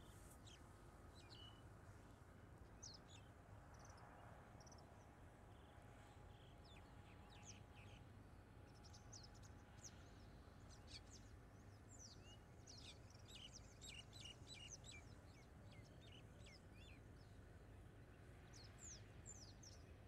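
Faint wetland ambience: small birds chirping at a distance in short, high notes, most busily in the middle and again near the end, over a low steady background hum.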